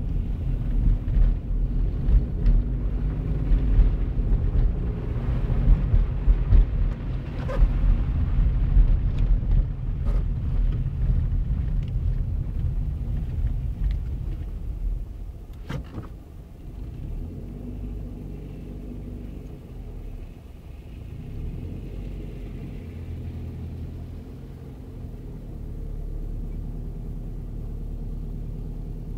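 Car's engine and tyre rumble heard from inside the cabin while driving on a snowy road. About halfway through it drops to a quieter, steady idle hum as the car waits at a red light, with a single sharp click around the change.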